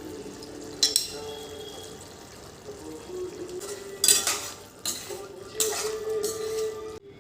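Dishes and kitchen utensils clattering, with sharp knocks about a second in and again around four and six seconds, over soft background music.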